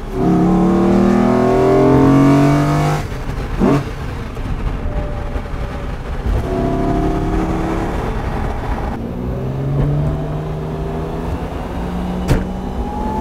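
Vector M12's Lamborghini Diablo-derived V12 engine accelerating, its pitch climbing, dropping at a shift about three seconds in, then climbing again in two more pulls.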